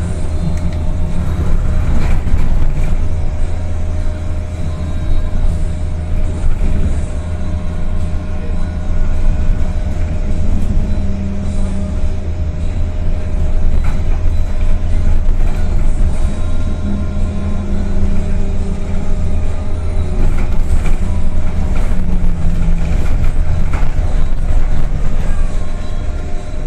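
CRRC C10 battery-electric bus running, with a steady heavy low rumble and the electric drive's whine, whose pitch rises and falls with speed.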